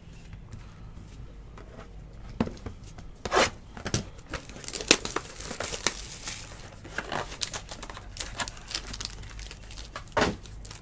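Crinkling and tearing of the plastic wrapping of a trading-card pack being opened by hand: quiet at first, then irregular crackling with a few sharper snaps.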